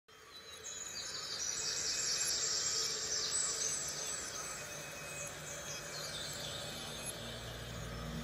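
Outdoor ambience of high-pitched chirping calls over a steady hiss, busiest in the first few seconds. A low hum comes in near the end.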